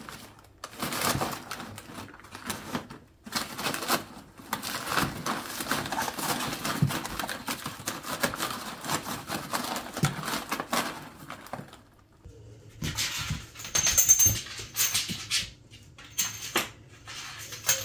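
A cat rustling and scratching about in a cardboard box full of paper and plastic sheets, in uneven bursts for about eleven seconds. After a brief lull, lighter rattling and clicking with a thin high ring comes near the end.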